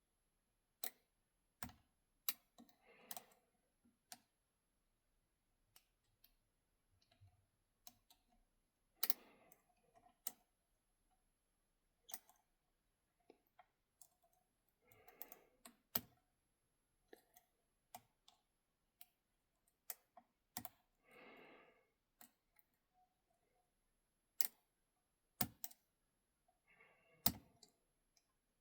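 Lock picks working in the keyway of an ASSA Ruko 500 pin-tumbler cylinder with spool pins: scattered sharp metallic clicks at irregular intervals, with a few short scratchy scrapes of the tools against the pins.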